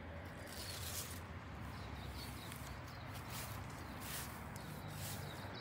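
Soft swishing footsteps through grass and garden plants, about one a second, over a faint steady low hum.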